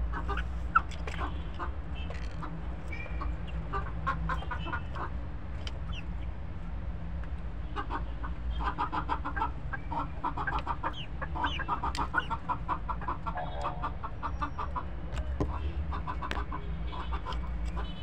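A flock of hens clucking in quick runs of short repeated notes, busiest in the middle and later part, over a steady low rumble. A single sharp tap sounds a little under a second in.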